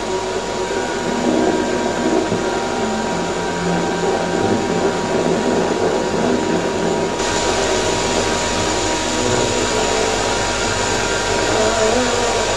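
A 1954 Kalart Victor 65-10 16mm sound projector running a film: a steady mechanical whir with the film's optical soundtrack playing through the projector's amplifier. The hiss grows brighter a little past halfway.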